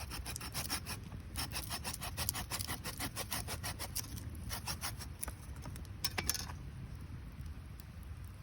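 Campfire of gathered firewood, damp from the previous day's rain, crackling in rapid runs of small pops over a low steady rumble. The pops are densest in the first half and come again in a short burst about six seconds in.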